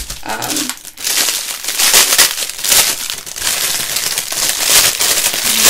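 Plastic packaging crinkling as it is handled and pulled open. It is loud and goes on without a break from about a second in.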